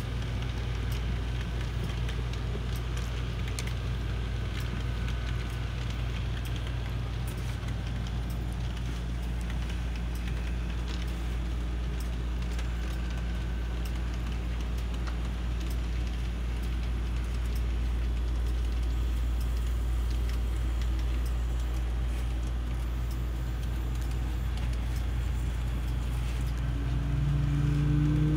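Sound of a model train's diesel locomotives running: a steady low engine drone with faint clicking over it. Near the end a louder tone comes in and rises slightly, as the engine sound revs.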